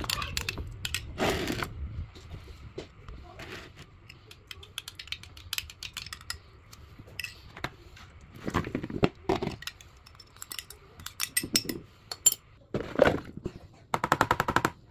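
Kitchen handling sounds: scattered clinks and light knocks of a spoon and bowls, with a few louder clattering thumps as cut potatoes, onion and green pepper are tipped from one bowl onto a raw chicken in another.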